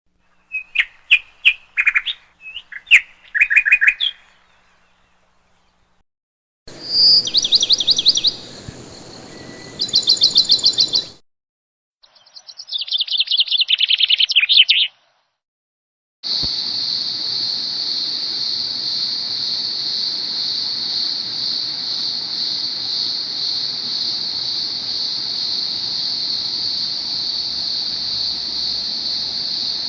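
Bird calls: sharp separate chirps, then rapid high trills, then a fast falling trill, in short clips broken by sudden silences. After about sixteen seconds comes a steady, high-pitched droning buzz that does not let up.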